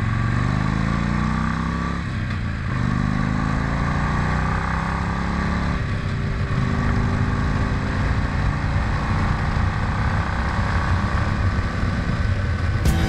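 Harley-Davidson V-twin motorcycle engine accelerating, its pitch climbing through the gears with shifts about two and six seconds in, then running steadily at road speed.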